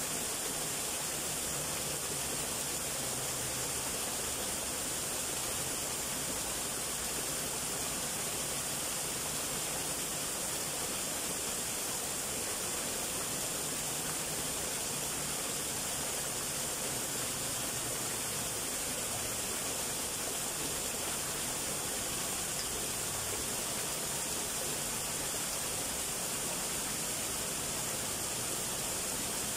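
Small waterfall: two thin streams falling over a rock wall and splashing into a shallow pool, a steady, even hiss of running water.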